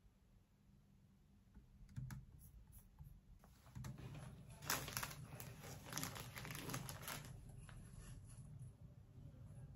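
A few soft clicks, then a KitKat's plastic wrapper crinkling and tearing as it is opened, in irregular bursts that go on for several seconds.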